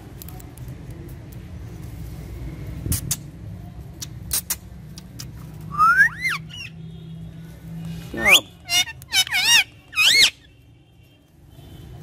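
Rose-ringed parakeet calling: a single rising call about six seconds in, then a burst of several loud, shrill screeches that swoop up and down in pitch near the end. A few sharp clicks come earlier.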